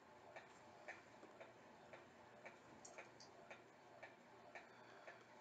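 Faint, steady ticking, about two ticks a second, with a few lighter clicks in between.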